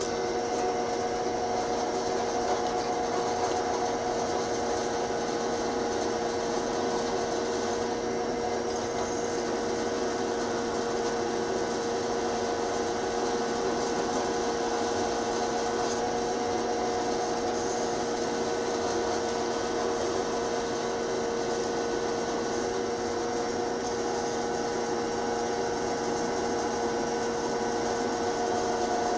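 Drill press running at a steady speed, its number 7 tap drill bit boring into steel plate, with an even motor hum.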